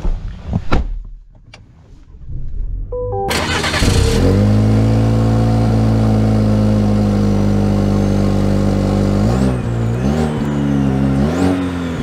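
2024 GMC Canyon's turbocharged 2.7-litre four-cylinder engine starting about three seconds in, then idling steadily. Near the end it is revved three times, the pitch rising and falling each time. A few clicks and a short electronic chime come just before the start.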